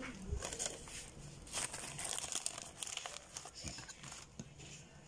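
Irregular crinkling and light clicks of kitchen handling: a fork picking up mango slices from a plate and laying them on graham crackers in a plastic food container. The noise is busiest in the middle and fades near the end.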